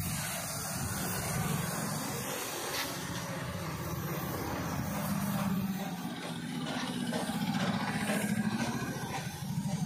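Compressed-air spray gun hissing as primer is sprayed, over a steady low mechanical drone with a fast pulse, which is the loudest thing heard.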